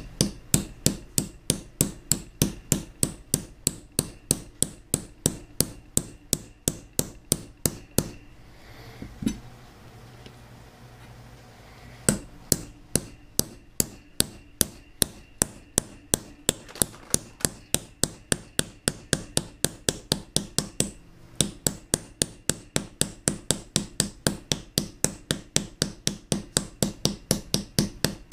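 Hammer tapping steadily on a steel shaft coupler used as a driver, about three sharp metallic strikes a second, to drive a freezer-chilled new bearing onto the cutter grinder's shaft. The tapping stops for a few seconds about eight seconds in, then resumes.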